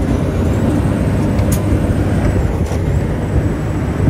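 Detroit diesel in an International truck running hard under load, heard from inside the cab. A thin high whine rises and falls over it, and there are two sharp knocks or rattles.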